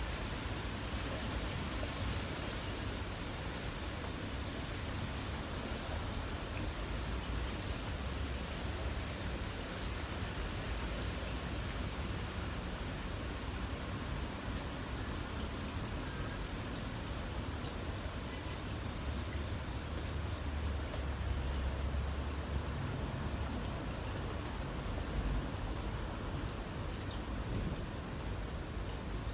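Insects, crickets, trilling in one unbroken high steady drone, over the even hiss of light rain and a low rumble.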